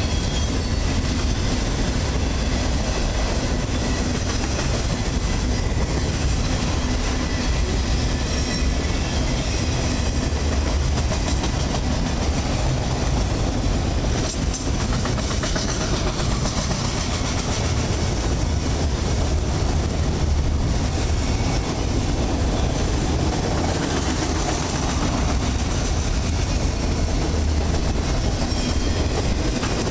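A freight train of autorack cars rolling past close by: steady rumble of steel wheels on the rails, with a cluster of clicks about halfway through.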